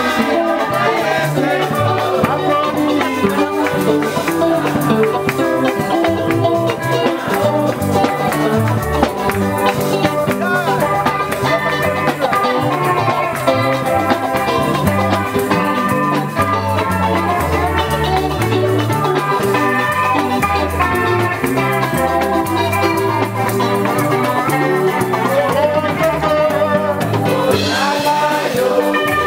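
Live Lingala gospel song played by a church band on electric guitar, keyboard and drums, with a moving bass line and voices singing along.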